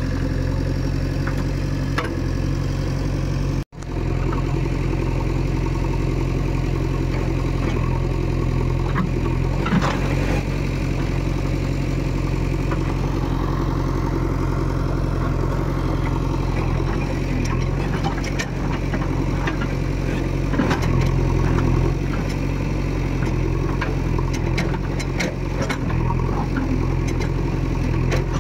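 JCB 3DX backhoe loader's diesel engine running steadily, with scattered knocks and clatter, more of them in the second half.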